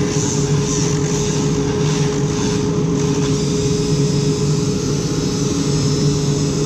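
Dremel rotary tool running at a steady high speed with a constant whine, cutting the lens opening out of the helmet shell.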